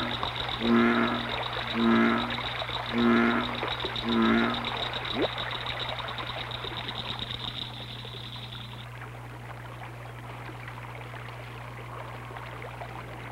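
A frog giving deep, pitched croaks about once a second, six in a row, over a high, fast, steady trill that stops about nine seconds in. A steady low hum runs underneath.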